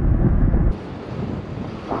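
Heavy wind buffeting the microphone while riding, cutting off abruptly less than a second in. It gives way to quieter city street and traffic noise.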